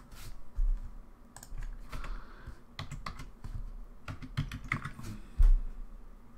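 Typing on a computer keyboard: a scatter of irregular key clicks. A couple of dull thumps are mixed in, the loudest about five and a half seconds in.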